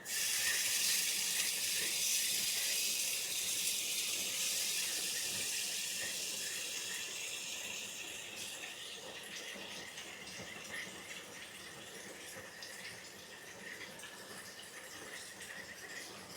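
Rushing water hiss that starts suddenly and fades over about eight seconds to a softer steady rush, with insects chirping faintly underneath.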